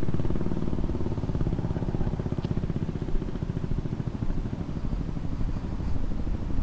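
A motorcycle engine idling: a steady, fast, even pulsing that eases off slightly in loudness.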